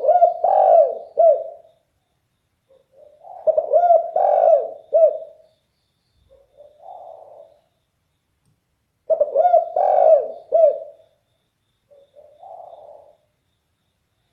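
Spotted dove (derkuku) cooing loudly in a deep voice: three loud cooing phrases a few seconds apart, the second and third each followed by a fainter short note.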